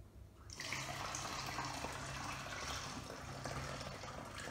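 Lukewarm water pouring steadily through a plastic funnel into a plastic spray bottle, starting about half a second in.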